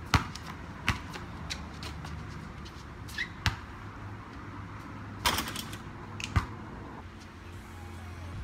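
A basketball bouncing on concrete and a shot striking the hoop: several separate sharp thuds, the loudest cluster about five seconds in, when the ball reaches the rim and backboard.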